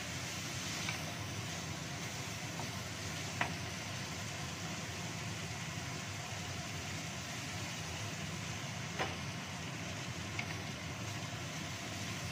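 Steady hiss of food cooking in a wok over a gas burner, with a few sharp knocks of a wooden spatula against the wok as the food is stirred.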